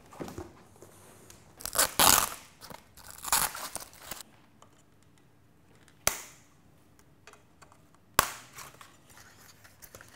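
Packing material crinkling and tearing as a bike part is unwrapped, in two bursts about two seconds in and a second and a half later, followed by two sharp knocks, one about six seconds in and one about two seconds after that.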